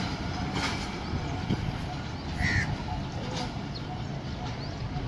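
Passenger train coaches rolling away along the track: a low rumble with occasional clacks of wheels over rail joints, fading as the train recedes. A brief bird chirp comes about halfway through.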